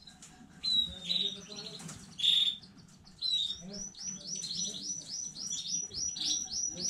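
Domestic canary singing: a few short high notes and a trill, then from about three seconds in a long run of the same swooping note repeated several times a second.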